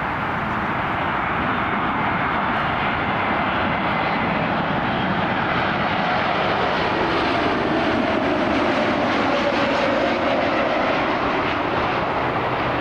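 Jet airliner passing close, its engine noise swelling to a peak about two-thirds through and then easing, with a faint tone that slowly falls in pitch as it goes by.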